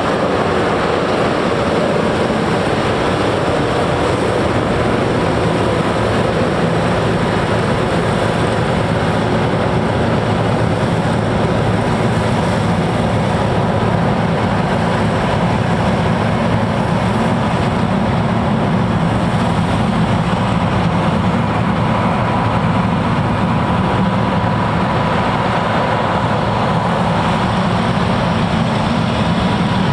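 John Deere T660 combine harvester running steadily while harvesting: a constant engine drone with a steady high whine from its machinery over it.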